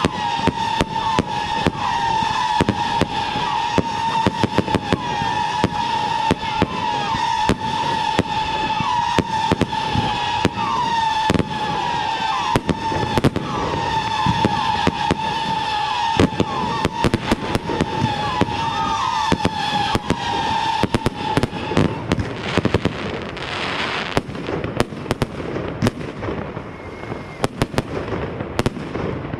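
Fireworks display: a dense, rapid run of bangs and crackles over a steady high whistle that wavers in pitch and stops a little past two-thirds of the way through. After that the bangs thin out, with a short hiss and scattered pops near the end.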